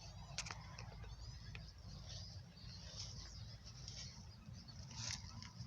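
Small birds chirping and twittering faintly, in many short high calls scattered throughout, over a steady low rumble.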